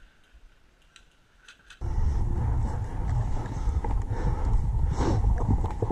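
Faint clicks at first. About two seconds in, a steady low rumble of wind and handling noise on a body-worn camera's microphone starts, mixed with scattered knocks and footsteps as a player walks across wooden boards and mud.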